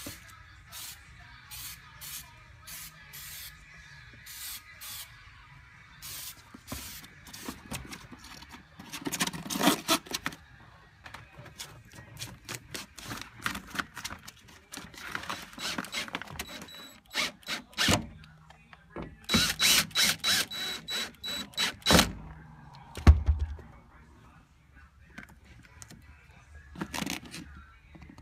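Short, evenly spaced hisses from an aerosol spray can coating a foam speaker pod, about two a second. Later come clusters of knocks and rattles as the pod and speaker are fitted into a car door, with a heavy thump near the end. Music plays underneath.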